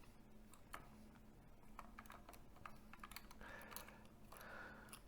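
Near silence with scattered faint clicks and taps of plastic parts being handled, and a soft rustling noise in the last second and a half.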